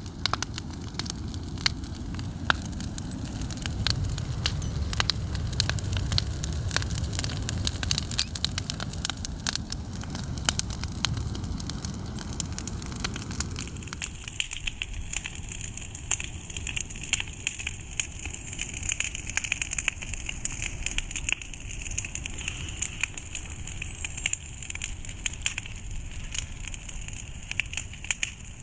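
Campfire burning, with wood crackling and popping in irregular sharp snaps. A low rumble under the crackle in the first half drops away about halfway through.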